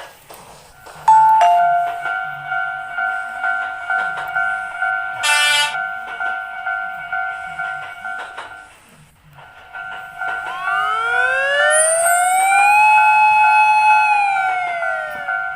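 Japanese level-crossing alarm ringing its repeated "kan-kan" in a steady rhythm over a held tone, with a short tone burst about five seconds in. From about ten seconds a siren-like tone rises, holds, and falls away near the end.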